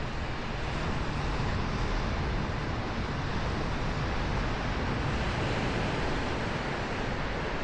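Ocean surf washing onto the beach, with wind buffeting the microphone: a steady noisy wash that grows a little louder about a second in.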